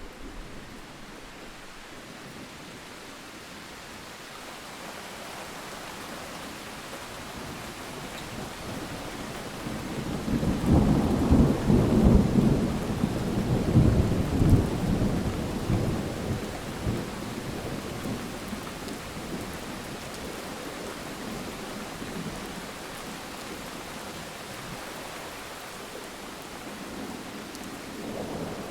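Steady rain with a long roll of thunder that swells about a third of the way in, stays loud for several seconds and fades away; another rumble begins near the end.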